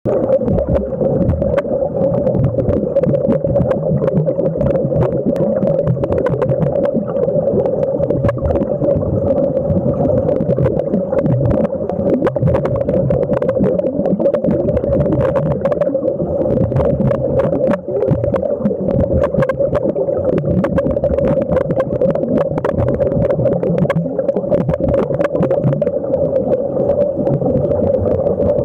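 Underwater sound of air streaming out of surface-supplied diving helmets: constant bubbling and crackling over a steady drone.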